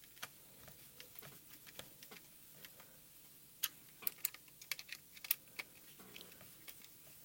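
Faint, irregular small clicks and ticks of a screwdriver and small plastic parts being handled as the screws holding a gimbal are tightened into a radio controller's case, a few sharper clicks in the middle.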